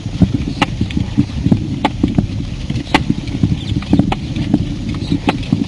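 Irregular clicks and knocks, like hard footsteps on a path, over a steady low rumble of handling noise from a portable recorder carried on a walk.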